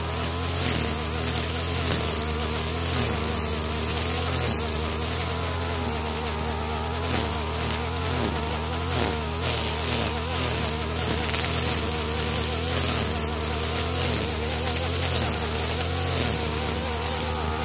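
STIHL FR 3001 backpack brushcutter's two-stroke engine running steadily at high speed, its nylon line cutting through tall grass with a swish every second or two as it sweeps side to side.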